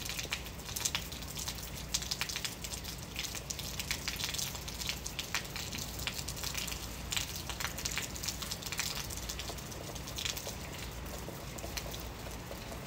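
Steady rain falling, with many close drops pattering and dripping over a low, steady rumble.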